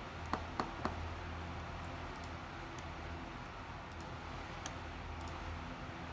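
Three quick, sharp clicks about a quarter second apart, then faint scattered ticks over a steady low hum.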